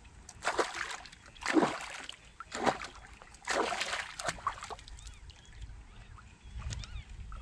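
A big pike thrashing and splashing at the surface in shallow water as it is played in on the line, in about five separate bursts of splashing over the first five seconds.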